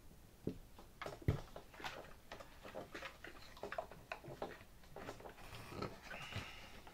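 Faint, irregular small clicks and taps of metal forceps and hands working inside a model airplane's fuselage, fishing a Velcro strap through.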